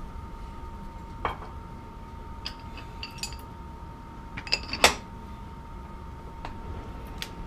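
Steel tools and parts being handled around a lathe: a few light metallic clicks and knocks, then one loud ringing clank about five seconds in. A faint steady whine runs underneath.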